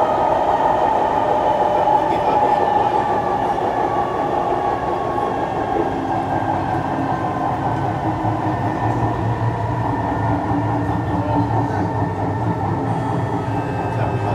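Interior running noise of a Kawasaki C151 electric multiple unit train: a steady rumble of wheels on rail with traction motor whine, its tones sliding slowly down in pitch over the first few seconds.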